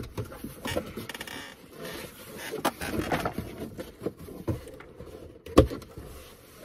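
Large cardboard shipping box being opened by hand: flaps scraping and rustling and tape being slit with a box cutter, with a sharp knock against the box about five and a half seconds in.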